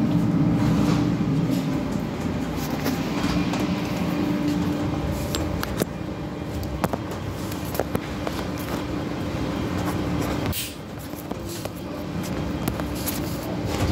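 Steady machinery hum of a commercial restaurant kitchen, with a low held tone and scattered clicks and knocks as the phone is handled and set down. The hum dips briefly about ten and a half seconds in, then returns.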